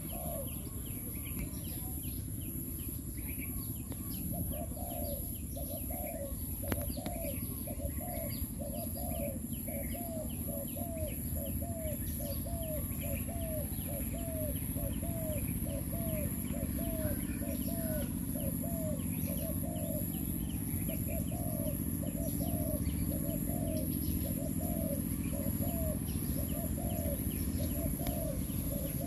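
A dove cooing in a long, even series of short notes, about one and a half a second, with small birds chirping faintly higher up.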